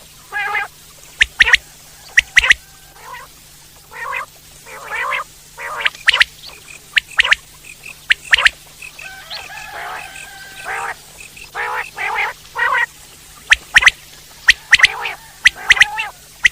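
Common quail calling: many short, sharp notes, often in quick groups of two or three, mixed with lower, rougher calls.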